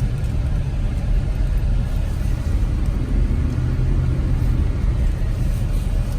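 Steady low rumble of road and drivetrain noise inside the cab of a 2005 Chevy Avalanche driving at about 25 miles an hour, while the front end shakes badly on the driver's side, a fault the owner sets out to cure by replacing the inner and outer tie rods.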